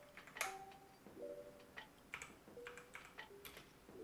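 Redragon Fizz K617 mechanical keyboard keys being pressed a handful of times, short sharp clacks with the loudest about half a second in, as the Fn+Alt combination is struck to step through the RGB lighting effects. Soft background music notes sound under the key presses.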